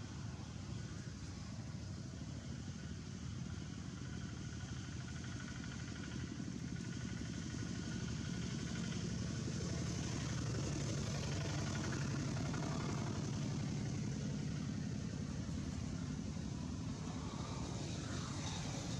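A motor vehicle's engine running with a steady low rumble, growing a little louder toward the middle and easing off near the end.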